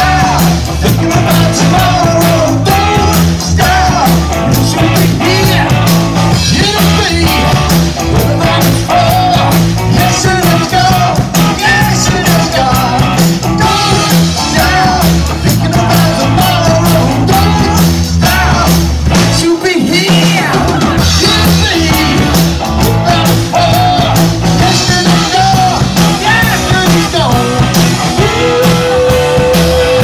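A live rock band playing loud: a male singer over electric guitar, bass guitar and drums. The bass and drums drop out briefly about twenty seconds in, and near the end a single note is held steady.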